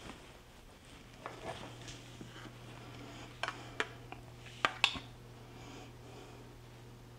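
A metal spoon clinking against a small stainless-steel bowl while scooping thick sauce: several light clinks and scrapes, the clearest four coming close together a little past the middle. A low steady hum runs underneath.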